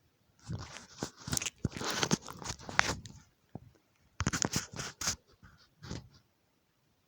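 Irregular crunching, scraping and clicking of small repair tools worked against a phone screen's contacts during hand soldering, in two spells: a longer one in the first half and a shorter one after a brief pause.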